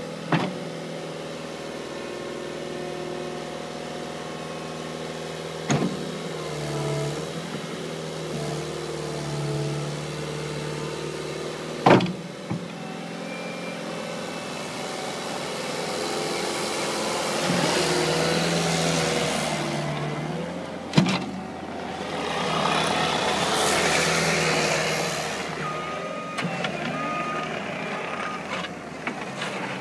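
Cat 289C compact track loader's diesel engine running and working under hydraulic load, rising and falling as the machine is operated, with a few sharp clunks. Its reversing alarm beeps steadily near the end.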